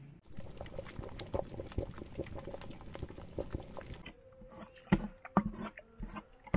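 A metal masher pounding cooked abgoosht meat and potatoes in a steel pot, giving wet squelching and clicking. In the last couple of seconds come several heavier thuds as the masher strikes the bottom of the pot.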